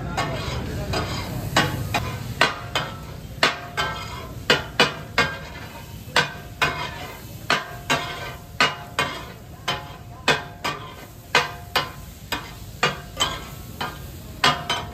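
Steel spatula striking, chopping and scraping on a large iron tawa griddle while fish katakat is cooked, the rhythmic clatter that gives katakat its name. The sharp clanks come about two a second, each with a brief metallic ring, over the steady sizzle of frying.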